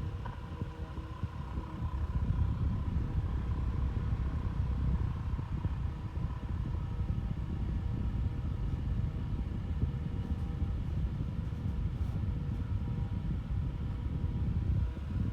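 Vent Axia Micro desk fan running with a steady motor hum. A loud, rough, low rumble of moving air comes in with a click at the start and drops away at the end.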